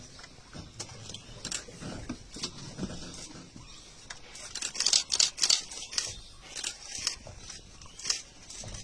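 Camera shutters clicking in rapid bursts, loudest in a quick run about five seconds in.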